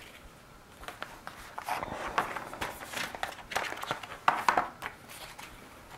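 Paper leaflets and a thin card insert rustling as they are handled and leafed through, in irregular bursts, loudest a little past four seconds in.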